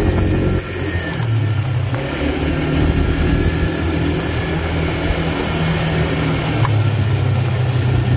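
ATV engine running steadily as the quad rides along a gravel trail, with a brief dip in loudness about half a second in before it pulls on.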